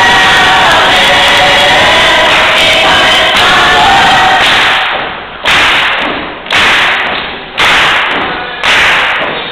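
Gospel choir singing, very loud and distorted. About halfway through, heavy thumps come in on the beat about once a second, each fading before the next.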